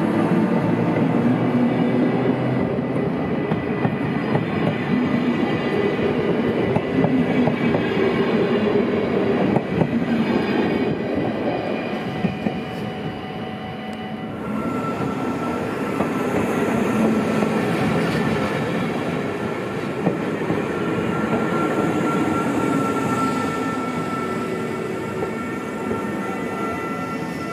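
Train running along the track through a railway station, with rumbling wheels on rails and steady tones. A higher steady tone joins about halfway through, and the sound fades toward the end as the train moves away.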